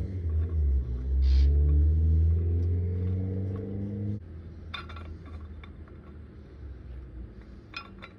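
A low, steady machine hum cuts off suddenly about four seconds in. Two light metallic clicks follow, about three seconds apart.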